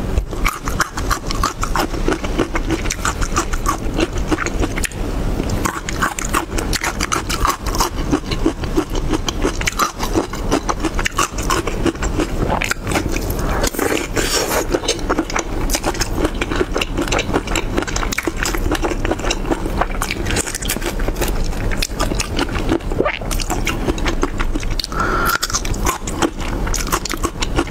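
Close-miked eating of garlic cloves and chili-sauce marinated shrimp: wet chewing, crunching and lip smacks, a dense run of small clicks and squelches throughout.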